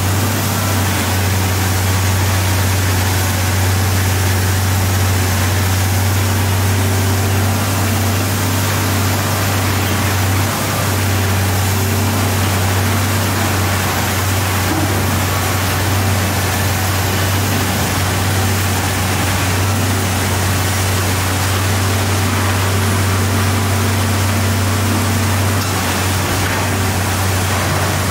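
Komatsu PC1250 demolition excavator's diesel engine running, a steady deep drone over a constant rush of noise as the machine works its long demolition boom. The drone dips briefly about ten seconds in.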